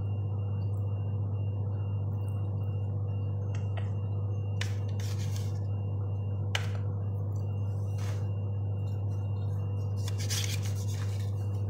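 A steady low hum throughout, with a few short scrapes and taps of a knife cutting freshly baked bread rolls on a metal baking tray. The longest scrape comes about ten seconds in.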